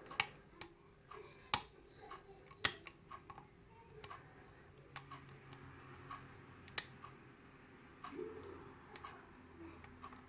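Lock pick and tension wrench working the pins of a Euro cylinder challenge lock: irregular small metallic clicks and ticks, with a few sharper ones.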